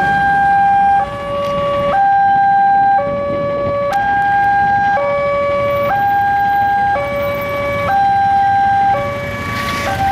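Electronic railway level-crossing alarm sounding its two-tone warning: a higher tone and a lower tone alternating, each held about a second. It signals an approaching train as the barrier arms come down.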